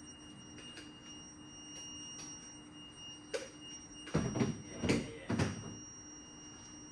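Faint steady hum, a click about three seconds in, then a short run of three clattering knocks, like metal gear being handled against the car.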